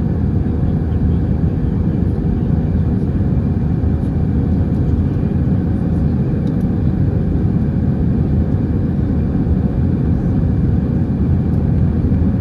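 Steady, loud cabin noise inside an Airbus A320 airliner heard from a window seat: a deep rumble of engines and airflow with a faint steady hum, unchanging throughout.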